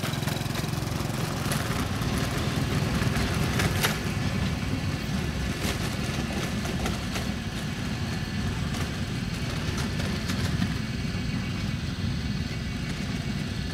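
Small motorcycle engine running steadily with a low, even note, and a few faint clicks over it.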